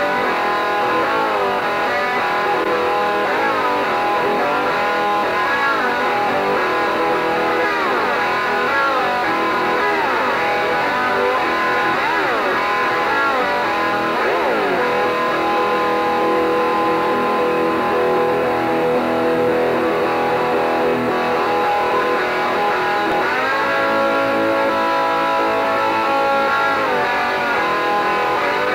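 Music led by an electric guitar, its lead notes bending and sliding in pitch, at a steady level.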